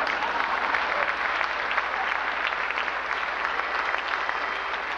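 Audience applauding, a dense, steady clatter of many hands clapping.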